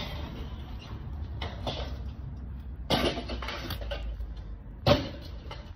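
Digital torque-and-angle wrench and socket working a crank pulley bolt during angle tightening: short metallic clicks and clatters of the ratchet and socket, the sharpest about three seconds in and again near five seconds.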